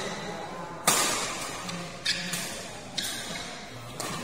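Badminton rally: four sharp racket strikes on the shuttlecock, about a second apart, each ringing briefly in a large hall.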